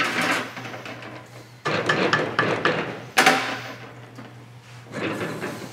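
Stainless steel chinois strainer and saucepan clanking against metal on the stovetop as the strainer is set up for straining the sauce: four separate clanks, each dying away quickly.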